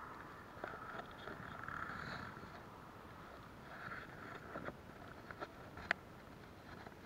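Tyre noise of a car that has just driven past on the road, fading away over the first second or two. Then small scattered clicks of a fishing lure and its hooks being handled over an open plastic tackle box, the sharpest click about six seconds in.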